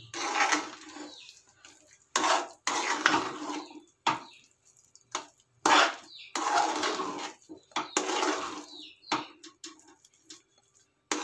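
A metal spoon stirring thick semolina kesari in a metal kadai, scraping and knocking against the pan in a series of separate strokes, about eight in all.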